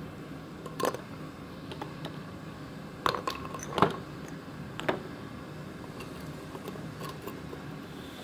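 Chunks of porous lava rock knocking and scraping as they are handled, set down on a wooden table and dropped into a crucible: a few sharp knocks and small clicks, the loudest about four seconds in.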